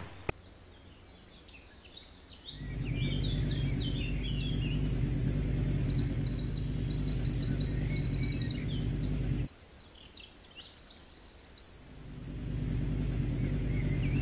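Birds chirping and trilling throughout, over a motorcycle engine running steadily. The engine comes in about two and a half seconds in, cuts out abruptly around nine seconds, and returns near the end.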